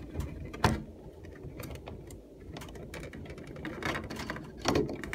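Scattered clicks and knocks from handling a Mitsubishi centrifugal bathroom exhaust fan's housing. The loudest comes about two-thirds of a second in and another near the end.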